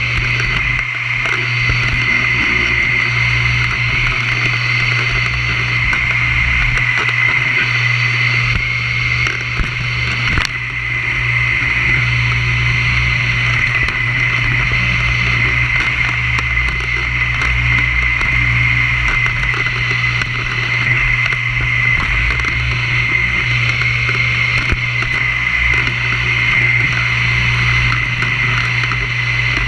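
Vacuum cleaner running steadily: a high whine over a low motor hum, with a brief dip about ten seconds in.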